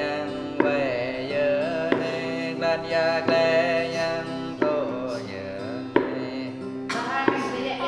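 A man singing a Jrai song to a strummed acoustic guitar, with a sharp percussive strike about every second and a half.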